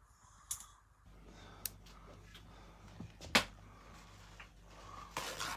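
Quiet room with a faint steady low hum and a few sharp clicks, the loudest about three and a half seconds in, then a brief rustle near the end.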